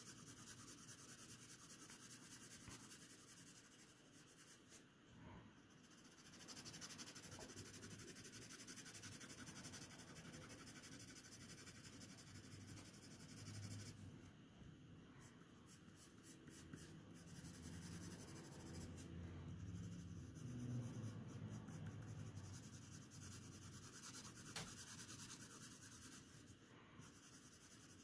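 Faint scratch of a graphite pencil shading paper in light, repeated strokes, pausing now and then.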